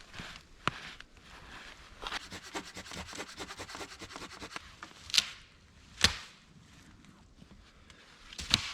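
Dry deadwood snapping: three sharp cracks a second or two apart, after a run of rapid small clicks lasting about three seconds.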